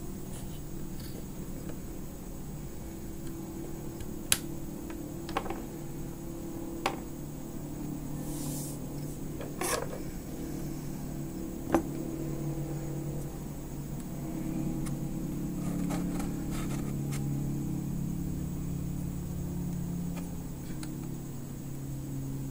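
Scattered sharp clicks and taps as the motherboard and its AM3+ CPU socket are handled by hand, about five in all, the loudest about two-thirds of the way through, over a steady low hum.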